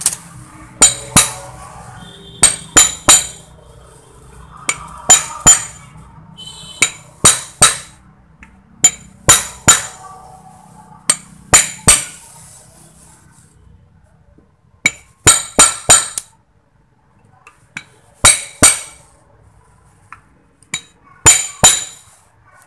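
Hammer blows on a steel punch, driving an electric motor's wound stator down into its new housing: sharp, ringing metal strikes in quick groups of two to four, with pauses of a second or two between. The fit is very tight.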